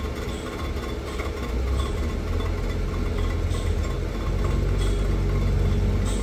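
Cylinder head surfacing machine running on automatic feed, its spinning disc cutter milling the deck face of a Toyota 22R aluminium cylinder head: a steady low mechanical hum with a faint light tick every second or two.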